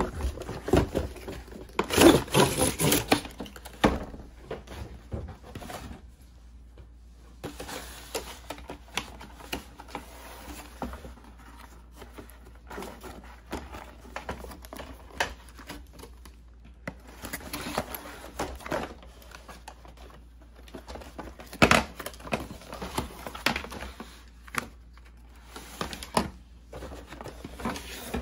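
Cardboard toy box handled and opened by hand: flaps pulled open and scraped, cardboard rustling and tapping in irregular bursts. The loudest stretch comes about two seconds in, with another sharp bump about three-quarters of the way through.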